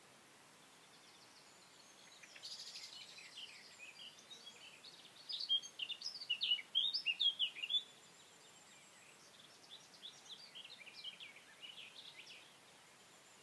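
Small songbirds singing in the morning: rapid high chirps and trills starting about two seconds in, loudest and densest in the middle, then a quieter run of chirps before fading out near the end, over faint outdoor background hiss.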